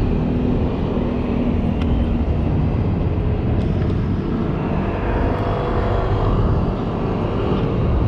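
Street traffic: vehicle engines passing on the road, heard as a steady low rumble.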